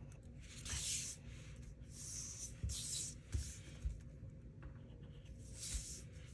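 Sharpie permanent marker rubbing across paper in several short strokes as it traces outlines. A few soft knocks come a little before the middle.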